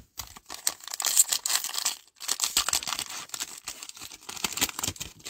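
Cellophane wrapper of a Panini Prizm football card cello pack crinkling and tearing as it is ripped open: a run of sharp crackles with a brief pause about two seconds in.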